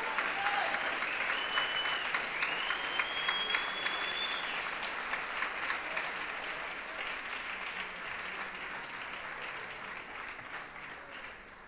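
Audience applauding: dense clapping that slowly fades away toward the end.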